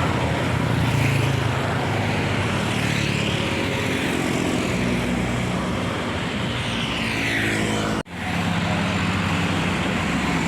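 Tour bus passing at close range: steady engine drone with tyre and road noise, the pitch sliding slowly up and then down. The sound drops out for an instant about eight seconds in, then picks up again.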